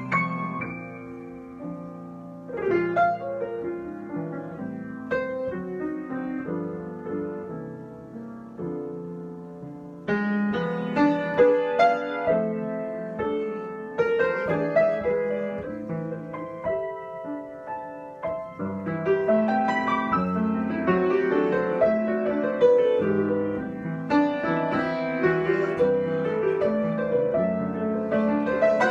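Solo piano improvisation: single notes and chords that ring and fade, softer and sparser at first, then growing fuller and louder from about ten seconds in.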